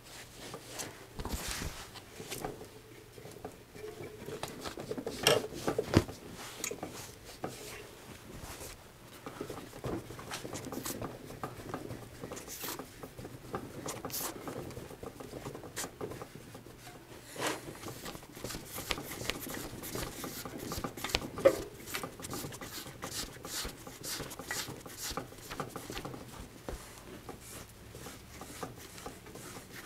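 Cloth rag rubbing and wiping a bicycle wheel's rim and tire in a truing stand, with scattered light clicks and scrapes and a couple of louder knocks, one about five seconds in and one about twenty-one seconds in.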